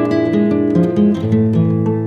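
Background music: acoustic guitar picking a melody with plucked notes in quick succession.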